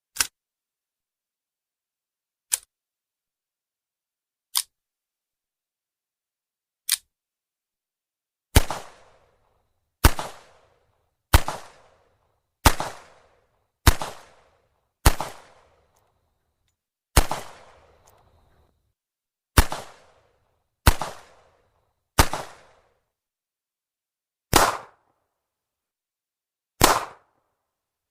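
.38 Special revolver firing single shots. First come four short, dry cracks about two seconds apart. Then about a dozen shots follow, each with a trailing echo, roughly one to two seconds apart.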